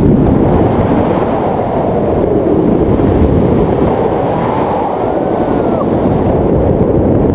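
Loud, steady wind buffeting the camera microphone, the rush of air from flying under a paraglider.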